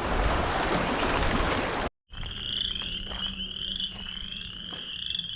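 Rushing water and wind noise that cuts off abruptly about two seconds in, followed by a chorus of frogs trilling steadily at a high pitch.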